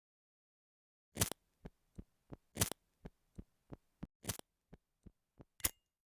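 A series of sharp clicks with dead silence between them. Louder clicks come about every second and a half, with softer ticks about three a second in between, the last loud click coming near the end.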